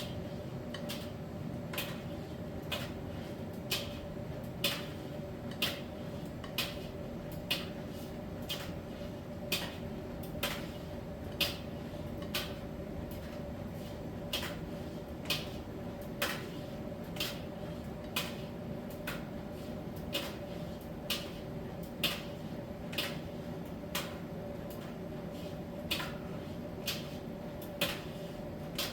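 Miele T1 heat-pump tumble dryer running in its drying stage: a steady hum with a held tone, and a light click about once a second as the drum turns and the load knocks inside it.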